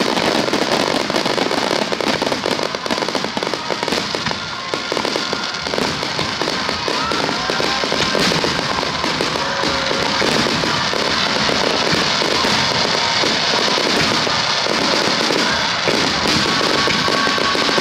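Aerial firework starmine finale: a dense, continuous barrage of shell bursts and crackling, with music playing underneath.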